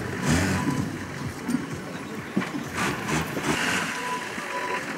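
Off-road truck engine revving unevenly in the mud, with surges near the start and again around three seconds in, and voices in the background.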